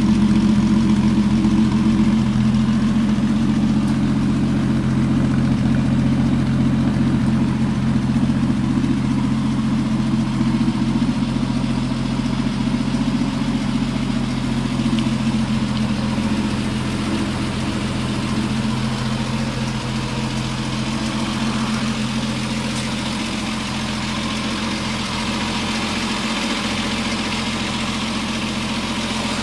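Triumph Vitesse 2-litre straight-six engine idling steadily, a little louder at first and easing slightly after the first twenty seconds or so.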